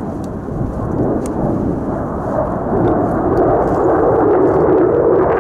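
Mitsubishi F-2 fighter's single F110 turbofan engine heard in flight: a deep jet rumble that grows louder about three seconds in as the jet closes in.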